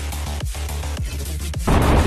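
Electronic dance music with a heavy kick drum about twice a second. About 1.7 s in it cuts off and a sudden, louder rushing noise takes over.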